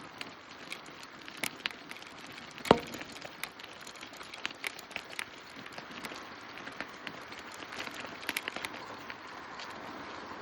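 Bicycle riding ambience: a steady soft hiss with scattered, irregular small clicks and ticks, and one sharper click a little under three seconds in.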